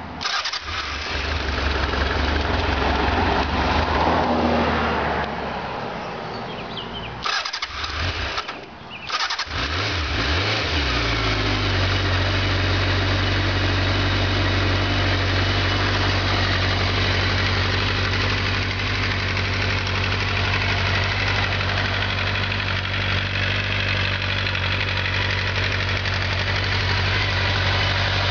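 Honda Nighthawk 750's air-cooled inline-four being started from cold on the electric starter: uneven cranking with a couple of short breaks, the engine catching about ten seconds in and then settling into a steady idle.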